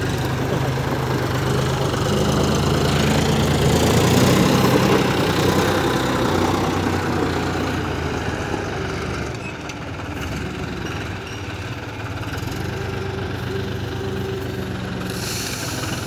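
Tractor engine running under load as the front-end loader lifts a full bucket of gravel, louder about two to five seconds in, then easing. Near the end, the rattle of gravel starting to pour from the tipped bucket into a steel hopper.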